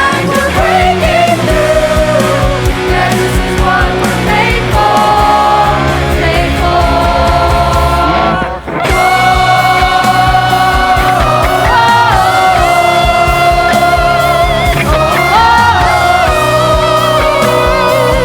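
Rock band playing: drums with a held, gliding melodic lead line over them. The band drops out for a moment about eight seconds in, then comes straight back in.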